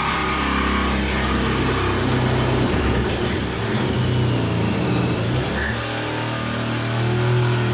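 Small handheld air-powered reciprocating body saw running steadily as it cuts through the car's sheet-steel body panel.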